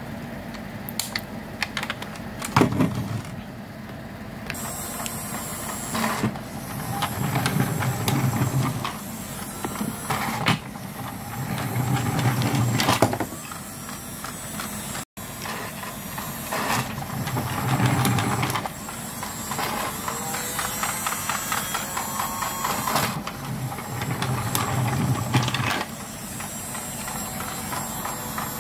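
Battery-powered toy steam locomotive running, its small geared motor and drive wheels whirring, with clicks and knocks now and then.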